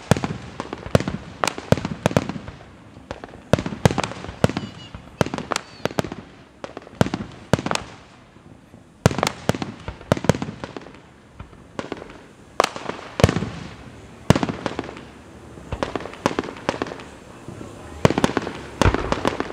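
Aerial fireworks shells bursting in a finale barrage: sharp bangs in rapid, irregular succession, each trailing off in a short echo, with a brief lull near the middle.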